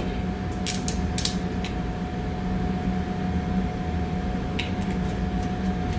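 Steady hum of commercial kitchen machinery, a low drone with a thin steady whine over it. A few light clinks of a glass olive oil bottle and a spoon against a stainless steel mixing bowl come about a second in, and one more comes later.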